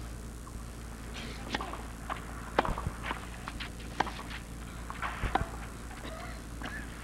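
Tennis ball struck by rackets on a clay court: a serve hit about four seconds in, followed by a quick exchange of racket strikes, with a few lighter taps before the serve, over a steady low crowd murmur.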